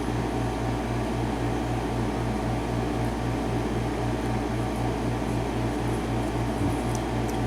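Steady low machine hum with an even pulsing about four to five times a second.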